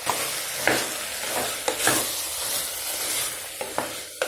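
Vegetables and freshly poured ground masala paste sizzling in oil in a pressure cooker, with a spoon stirring and knocking against the pot several times.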